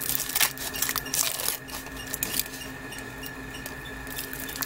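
Foil wrapper crinkling and crackling as it is peeled off a chocolate surprise egg. It is loudest in the first second and a half, then dies down to lighter rustles.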